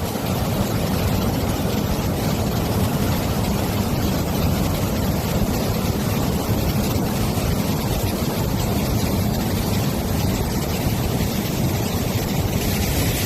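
Water rushing steadily in a loud, even noise with no breaks, the kind heard where water is let out of a lake or reservoir through its gates.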